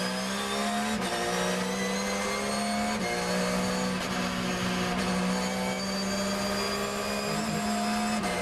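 Porsche 911 GT3 R's flat-six racing engine at full throttle, heard from inside the cockpit. The pitch climbs steadily and drops back with quick upshifts about a second in, about three seconds in and near the end as the car gathers speed.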